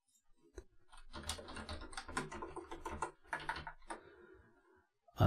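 Typing on a computer keyboard: a quick run of keystrokes starting about a second in and stopping about four seconds in.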